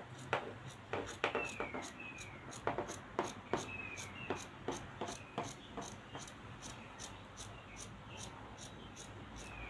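Dressmaking scissors cutting through cotton print fabric: a series of sharp snips, frequent at first and sparser after about six seconds. A few short falling chirps sound now and then.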